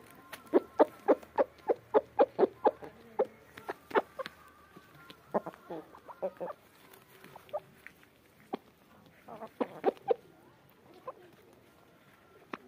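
Aseel chickens clucking: a quick run of short clucks, about three or four a second, over the first few seconds, then scattered single clucks and a brief cluster later on.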